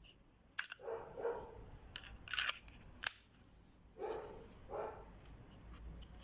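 Small knife being slid in and out of its kydex sheath: three sharp clicks and several short, faint sliding scrapes.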